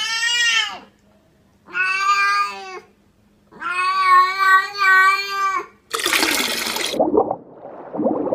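Cat meowing: three long, fairly level calls one after another. These are followed, about six seconds in, by a second or so of loud rushing, whooshing noise and then rougher, lower noise.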